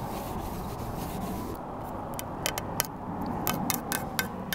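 Cloth rubbing as a surface is wiped down with denatured alcohol, then from about a second and a half in a scatter of short sharp crackles while an adhesive foam strip is handled.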